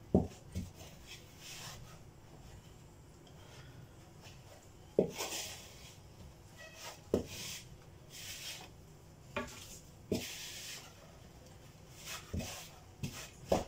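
Wooden spoon stirring thick crêpe batter in a bowl: soft scraping and rubbing, broken by several sharp knocks of the spoon against the bowl at irregular intervals.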